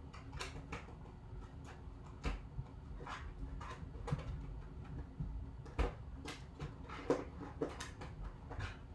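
Trading cards being slid into plastic sleeves and hard cases: scattered light clicks and rustles of plastic at irregular intervals, over a low steady hum.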